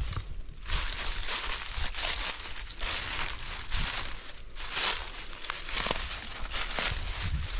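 Footsteps crunching through dry fallen leaves, about one step a second.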